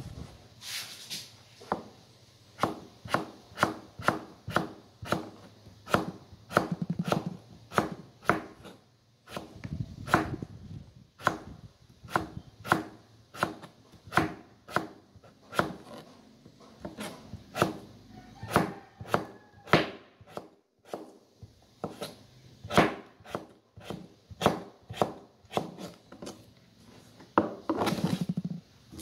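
Kitchen knife slicing raw potato on a plastic cutting board: sharp taps of the blade hitting the board at about two a second, broken by short pauses. A few longer rubbing sounds come in between the taps.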